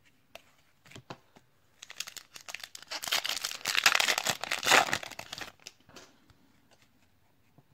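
A plastic trading-card pack wrapper being torn open and crinkled by hand: a dense crackling rustle that builds about two seconds in, peaks, and stops after about five and a half seconds. A few light clicks come first.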